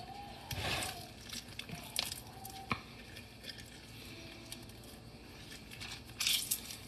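A halved lemon squeezed by hand, giving soft wet squishes as the juice is pressed out, with a few small knocks and one louder squelch near the end.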